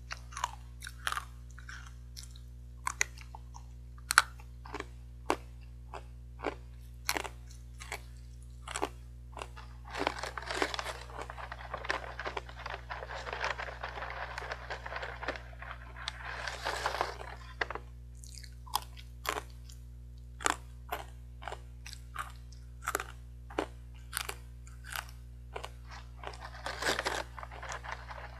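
Close-up crunching of hard, dry sweet potato sticks being bitten and chewed, sharp crunches about once or twice a second. From about a third of the way in to past halfway, and again near the end, a long stretch of crinkling from the snack bag as she reaches into it and tips it to her mouth.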